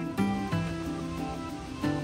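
Background music: a mellow instrumental with plucked guitar and held notes changing about every second or two.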